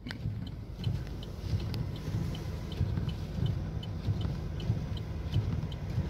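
Car heard from inside the cabin: a steady low engine and road rumble, with a faint, even ticking about two and a half times a second.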